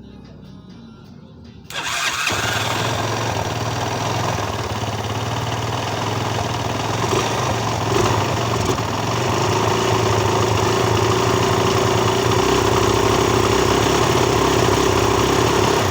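Honda XL200 single-cylinder four-stroke engine starting up about two seconds in and then running steadily, just after a new timing chain has been fitted.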